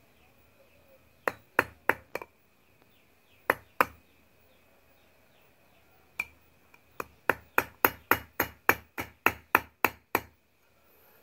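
Hammer striking a steel punch against a Honda New Megapro motorcycle drive chain, driving out a link pin to shorten the chain. A few spaced metallic blows, then a quick run of about a dozen blows near the end, as the thick, hard pin resists.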